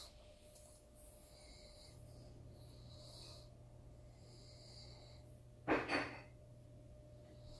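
A pug's short double snort about three-quarters of the way in, over quiet room sound with a low steady hum.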